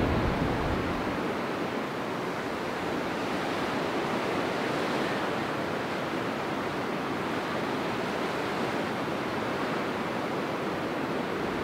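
Steady surf of waves breaking and washing on a beach, mixed with wind. A low wind rumble dies away in the first second.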